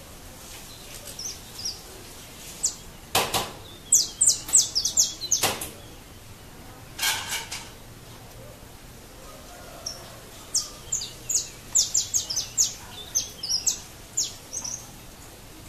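Saffron finches (canário-da-terra) singing: runs of sharp, high chirps in quick succession, phrase after phrase with short pauses between.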